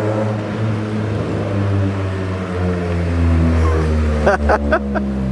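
Chevrolet Corsa's engine and exhaust running at low revs as the car drives slowly up and approaches. The low droning note shifts a little in pitch and grows louder as it nears. A few short sharp sounds come about four and a half seconds in.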